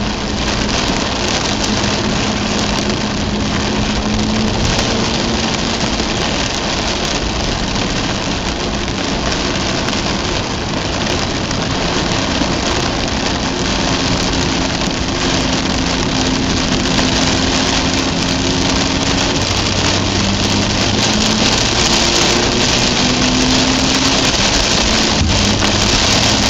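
Heavy rain drumming on a Mazda RX-8's windscreen and body, heard inside the cabin over tyre hiss on a waterlogged road. The car's twin-rotor rotary engine hums underneath, its pitch shifting a few times.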